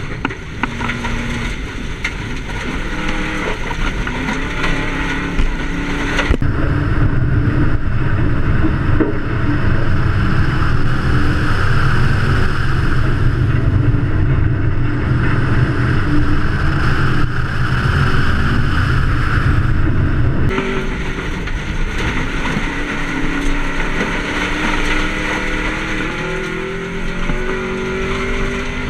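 Turbocharged flat-four engine of a 2004 Subaru WRX rally car, driven hard, its pitch rising and falling as it accelerates and shifts. From about six seconds in to about twenty seconds it is heard from the bonnet outside the car, a heavier, deeper rumble. Before and after that it is heard from inside the cabin.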